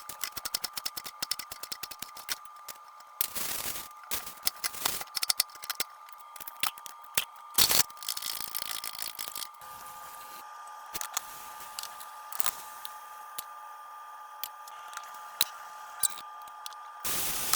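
Rapid small clicks for about three seconds, then scattered clicks and taps of kitchen utensils and tableware, over a faint steady hum.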